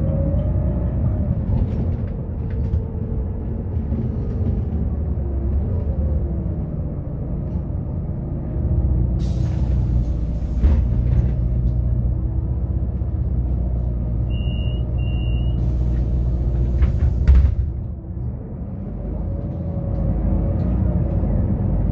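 Interior sound of a Solaris Urbino 12 III city bus under way: the engine and drivetrain rumble, with the pitch rising and falling as it accelerates and changes gear. Two loud bursts of air hiss from the pneumatic system, about nine seconds in and again near the end, with two short beeps between them; the rumble drops as the bus slows to idle.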